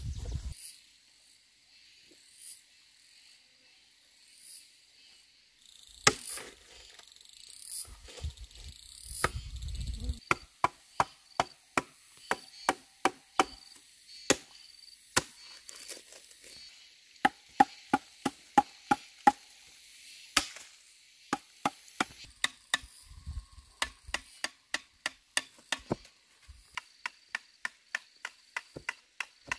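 Knife chopping food on a wooden cutting board: sharp, even strokes at about two a second in runs, starting about ten seconds in. Insects chirp faintly in the background.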